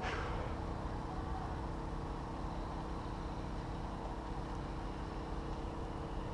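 Low, fluttering rumble of wind on the camera microphone under a faint steady hum, with a brief swish at the very start.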